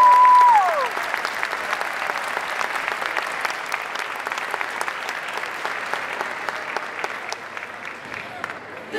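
Audience applauding, with the announcer's long drawn-out last syllable of a name, held on one pitch, falling away in the first second. The clapping then carries on and fades near the end.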